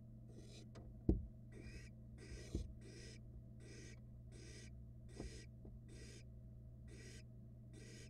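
Barn owl nestlings giving a steady run of short rasping hisses, their food-begging 'snoring' call, about one every 0.7 seconds. A few dull thumps break in, the loudest about a second in, as the owlets shift and tug at prey on the floor of the wooden nest box.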